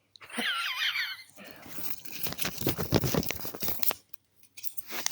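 A slap band being handled: about a second of high, wavering squeaks, then a run of crinkling and crackling clicks.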